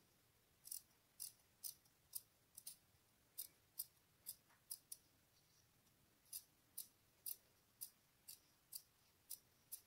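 Scissors snipping through cotton fabric, trimming the excess seam allowance close to the stitching of a sewn face mask. A run of about a dozen short, sharp snips, a pause of about a second, then another run of about eight, roughly two snips a second.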